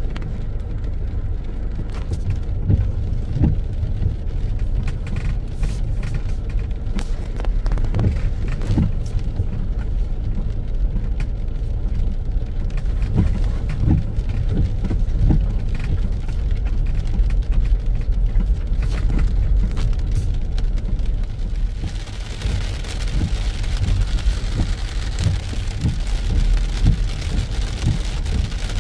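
Rain hitting a car's roof and windshield in scattered taps, heard inside the cabin over the low rumble of the car rolling slowly on a wet road. The hiss of the rain grows louder about two-thirds of the way through.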